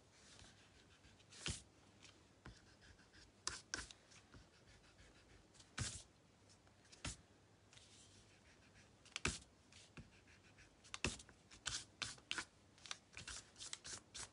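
Block eraser rubbed over cardstock to remove pencil marks: faint, irregular short scratchy strokes, with the card shifting on the mat.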